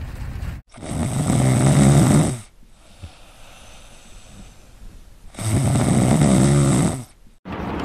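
A person snoring loudly: two long snores about three seconds apart.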